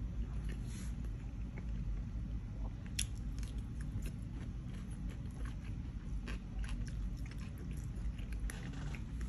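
A man chewing food with his mouth closed: soft wet chewing with many scattered small clicks, over a low steady hum.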